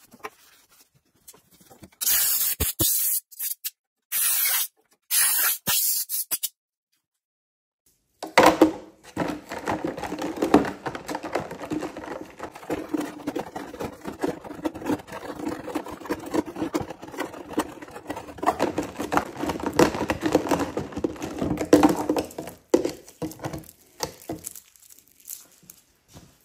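Three short hissing sprays onto a chainsaw guide bar and chain. After a brief pause comes a long stretch of rapid scrubbing and scraping as the bar and chain are cleaned.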